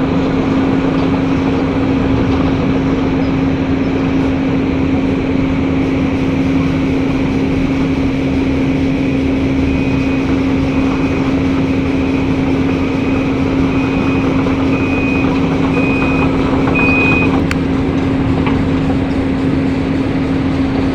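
Large diesel engine of a Tata Hitachi Zaxis 870H excavator running steadily with a deep, even hum. Midway, an alarm beeps about once a second for several seconds, then stops.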